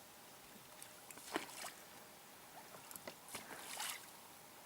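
Oars dipping and pulling through the water of a rowboat: a few faint, short splashing swishes.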